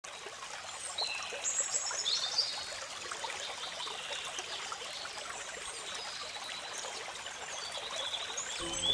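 Stream water trickling and splashing through the gaps in a low rock weir, a steady rush, with a few short high chirps over it about a second in and near the end.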